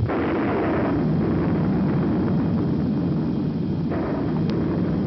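Cartoon sound effect of a volcano erupting: a deep, continuous rumble with explosive surges at the start and again about four seconds in.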